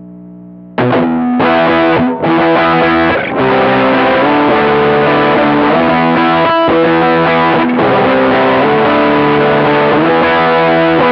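Electric guitar played through a Baroni Lab Billy Goat's Muff, a muff-style distortion pedal, giving a thick, saturated fuzz tone. A faint note rings at first, then about a second in loud distorted chords and sustained notes begin, with two short breaks in the first few seconds.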